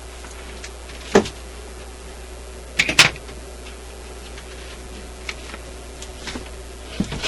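Sharp knocks and clicks of things being handled on a workbench: one about a second in, two louder ones close together about three seconds in, and a run of small clicks near the end, over a steady low hum.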